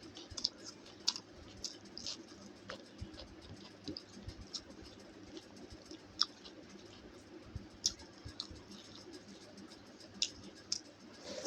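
A person eating close to the microphone: chewing with irregular soft mouth clicks and smacks, one or two a second.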